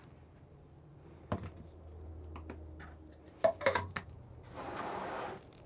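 Metal gooseneck kettles handled and set down on their heating bases: a knock about a second in, a faint low hum, then a quick cluster of metal clinks and knocks, followed by a short hiss near the end.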